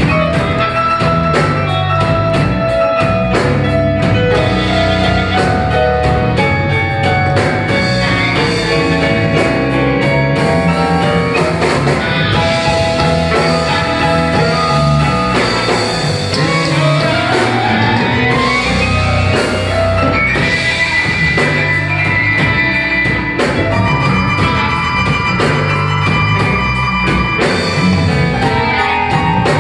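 Live electric blues band playing: drum kit keeping a steady beat under electric guitar, bass and keyboard, with a harmonica soloing over them. A rising run of notes comes about midway.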